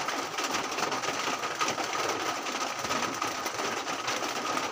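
A steady, dense rattling noise with a faint high whine running through it.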